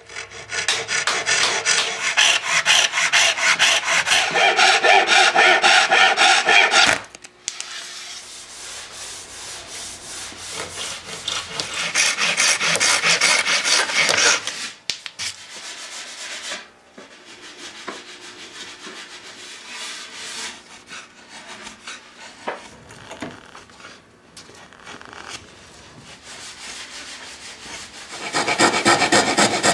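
Hand tools shaping a teak repair patch: a handsaw cutting in rapid back-and-forth strokes, with quieter stretches of stroking in the middle, then a file rasping the wood in quick strokes near the end.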